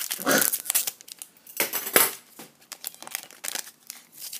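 Trading card pack wrapper being torn open and crinkled by hand, in irregular crackling rustles, loudest about half a second in and again around two seconds in.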